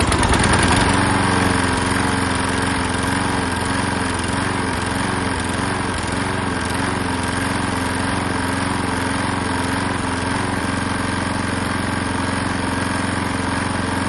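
Hayter Harriet 41 rotary mower's petrol engine running after a start. Its speed wavers during the first several seconds, then settles to a steady run. It is still not running smoothly, which the owner puts down to a partly blocked carburettor after clearing its main jet.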